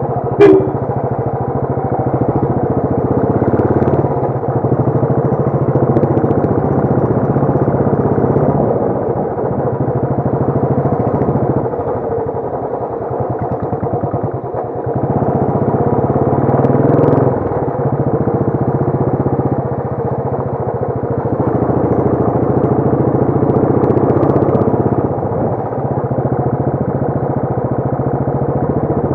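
Royal Enfield Bullet single-cylinder engine running on the move, mixed with background music. A sharp click about half a second in.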